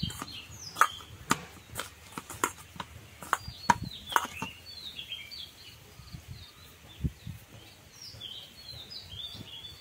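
Sharp clicks and taps of hands working a ball of dough in a stainless-steel bowl, thick in the first half, with a dull knock about seven seconds in. Small birds chirp in short high calls throughout, most in the last two seconds.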